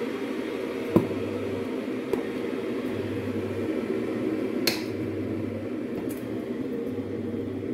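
Steady hum of a running kitchen appliance, with a lower tone that comes and goes about once a second. A few sharp clicks and taps of kitchenware stand out over it, the loudest about a second in and a sharp, bright one just before the five-second mark.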